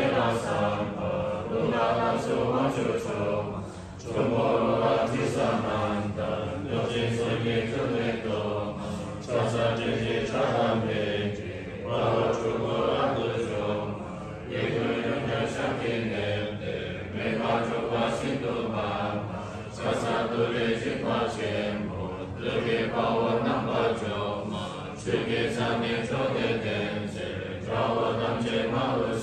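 A group of devotees chanting Tibetan Buddhist prayers together in unison, in long phrases with brief breath pauses every several seconds.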